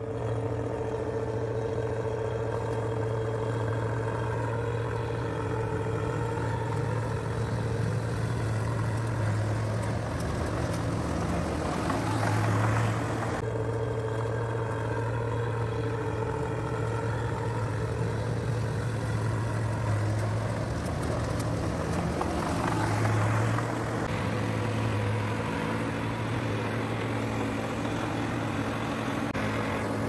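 Combine harvester engine running steadily under load while harvesting, a continuous low drone that swells briefly louder twice.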